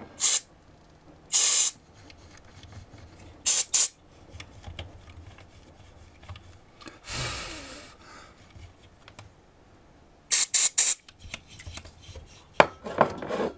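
Aerosol contact cleaner sprayed in short hissing bursts into the control potentiometers of an Akai AA-5800 amplifier, a dose to clean the pots: one burst near the start, a longer one about a second and a half in, two a couple of seconds later, a quick run of four near the end and one more just before it stops.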